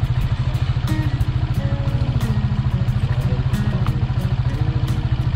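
A small engine running steadily, with a rapid, even low pulse.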